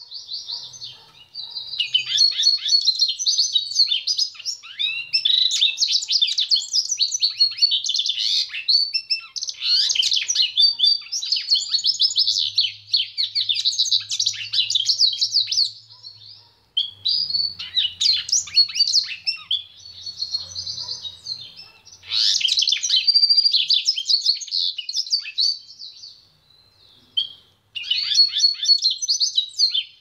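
Grey pintagol (hooded siskin × canary hybrid) singing: long phrases of rapid, high twittering and trilling, broken by brief pauses about 16, 21 and 26 seconds in.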